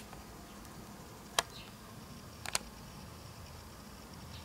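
Quiet room tone broken by a few brief sharp clicks: one about a second and a half in, then a quick pair about a second later. A faint thin high tone runs through the second half.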